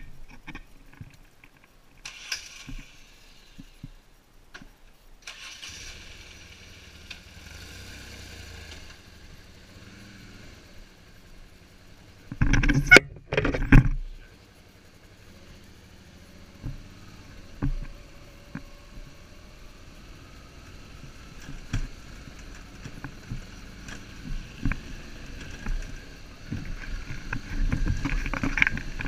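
Suzuki V-Strom 650's V-twin engine starting about five seconds in and then running as the motorcycle rides over a rough dirt and gravel track, its note rising as it picks up speed. Two loud short bursts come about halfway through, and knocks and clicks from the rough ground go on throughout.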